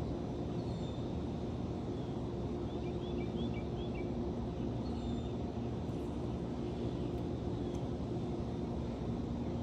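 Steady outdoor background rumble with a faint droning hum, like a distant engine, and a few small bird chirps about three seconds in.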